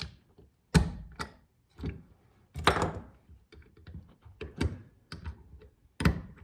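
Irregular sharp metal clicks and knocks as a socket and a scrench are worked against a chainsaw's chain catcher to push a tiny snap ring down onto its dowel.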